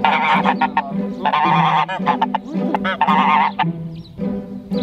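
Domestic geese honking loudly in three harsh bouts over the first three and a half seconds, then quieter near the end.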